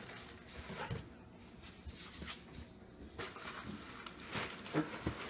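Cardboard rustling and scraping in short, irregular bits as a hand rummages inside a shipping box, shifting its flaps and contents.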